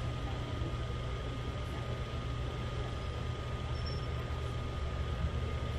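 Steady low rumble of background room noise in a large gym hall, with a faint constant high tone.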